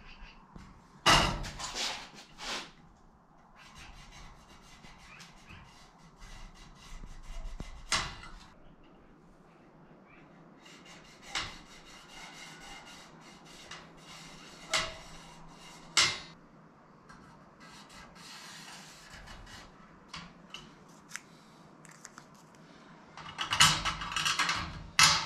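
A steel rule being set down, slid and tapped against aluminium spar parts, giving scattered clicks and knocks with soft rubbing between, and a louder burst of clatter near the end.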